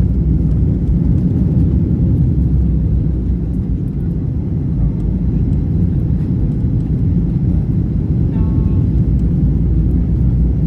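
Steady low rumble of a Boeing 737-800 airliner's CFM56 jet engines as it comes in to land.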